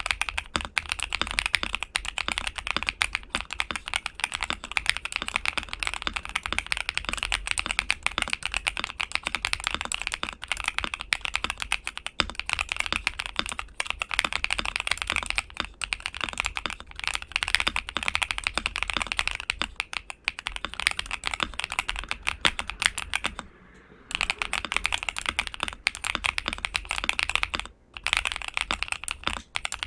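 Modded ASUS Azoth mechanical keyboard with LEOBOG Graywood v4 switches on a polycarbonate plate, dampened with layers of foam and PET film, being typed on fast: a dense, continuous run of keystroke clacks, with one short pause about three-quarters of the way through.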